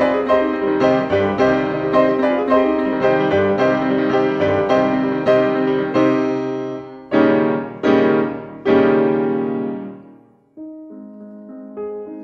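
Background piano music: a flowing run of notes, then three loud chords a little under a second apart that ring out and die away, before a quieter passage begins about ten and a half seconds in.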